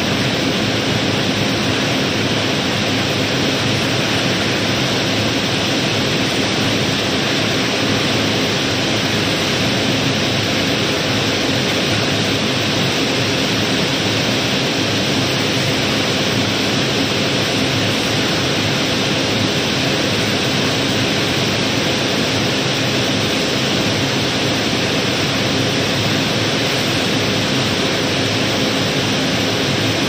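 Steady rushing rattle of river gravel pouring from a barge's hold down a chute during unloading, with a faint steady hum underneath.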